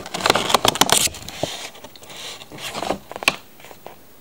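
Cardboard and plastic packaging being handled: a flurry of rustles and clicks in the first second, then scattered clicks with one sharp click about three seconds in.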